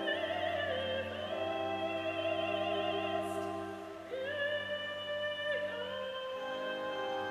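Operatic soprano singing long held notes with a wide vibrato over a sustained instrumental accompaniment; she breaks off and starts a new phrase on a lower note about four seconds in.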